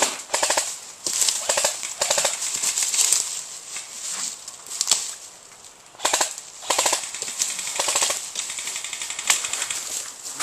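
Airsoft guns firing short full-auto bursts: clusters of rapid clicks, about ten bursts with a quieter gap a little past the middle.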